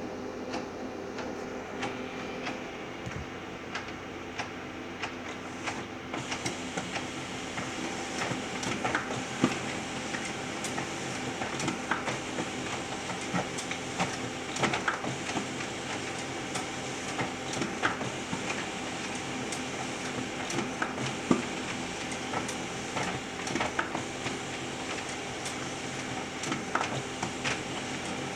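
Ricoh SP C252SF colour laser printer running a print job: a steady mechanical hum with frequent small clicks and rattles, and a brighter hiss joining about six seconds in. This noise from the new printer is, according to the maker's support, normal during its first prints.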